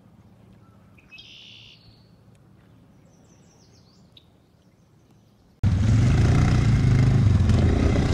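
Faint bird chirps over quiet outdoor ambience. About two-thirds of the way through, the loud steady engine of an ATV driving through shallow water cuts in abruptly.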